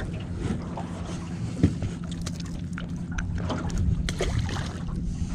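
Ambient sound on a small aluminium boat at sea: wind on the microphone and water moving around the hull over a steady low hum, with a few light clicks and knocks.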